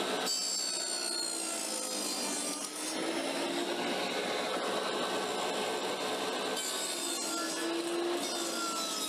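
Portable table saw running and ripping a wooden floorboard fed on edge, to bring it to an even thickness: a steady saw-through-wood noise with a faint motor tone.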